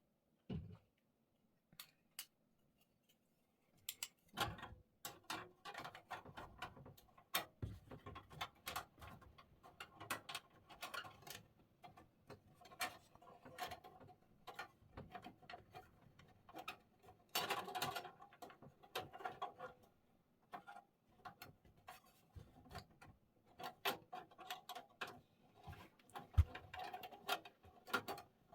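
Faint, irregular clicking and tapping of small metal parts being handled in a PC case as the graphics card's bracket cover and screws are fitted.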